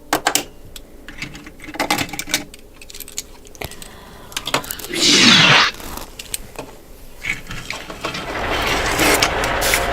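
Plastic toys handled in sand: scattered clicks and knocks, a loud brief scraping rush about five seconds in, then a rougher scraping noise that builds near the end.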